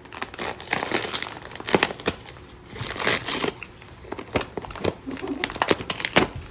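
Gift wrapping paper crinkling and rustling as a present is unwrapped, in irregular crackly bursts with sharp snaps.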